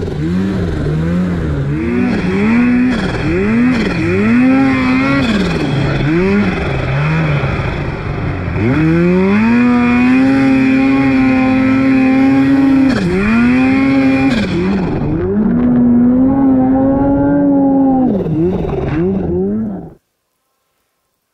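Snowmobile engine revving up and down again and again as the sled plows through deep powder, with several long high-rev pulls. It cuts off abruptly near the end.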